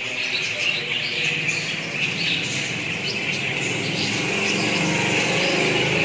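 A flock of budgerigars chattering and chirping continuously. A low drone rises underneath in the last couple of seconds.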